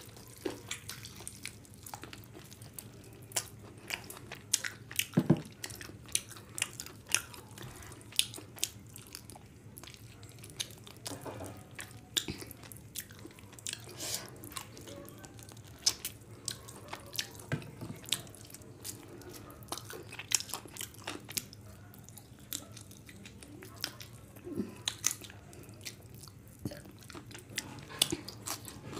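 Close-up eating sounds: chewing and lip smacks on mouthfuls of whole chicken curry and rice eaten by hand, a run of many sharp, irregular wet clicks.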